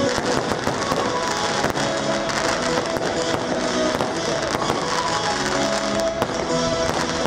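Aerial fireworks going off in a rapid, irregular string of bangs and crackles, over the display's accompanying music with sustained notes.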